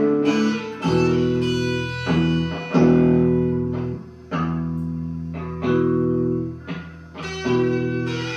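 Guitar playing a blues, with plucked chords and notes struck about once a second, each ringing out and fading before the next.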